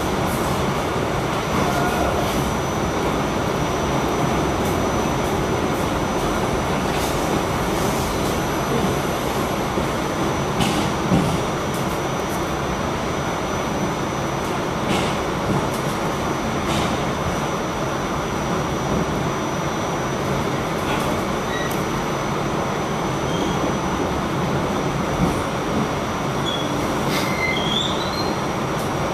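An R46 subway car running at speed, heard from inside the car: a steady rumble of wheels on rail with scattered sharp clicks. There are a few short, high wheel squeals near the end.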